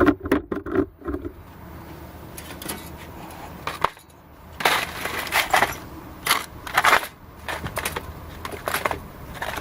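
Hands at work with dry tinder and kindling while lighting a small fire: a few sharp knocks, then, from about halfway, a run of roughly seven short, crackling scrapes.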